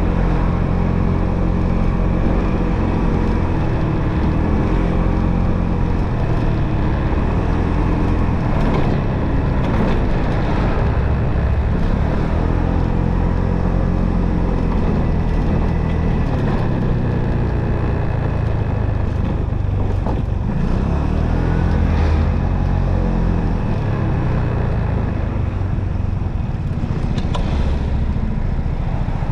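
Motorcycle engine heard while riding, its pitch rising and falling several times as it speeds up and eases off, over a steady low rush of wind and road noise.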